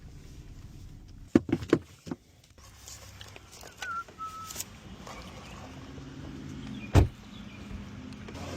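Sounds inside a car: a quick run of sharp clicks and knocks a little over a second in, then one louder thump about seven seconds in, over a steady low hum of the running vehicle.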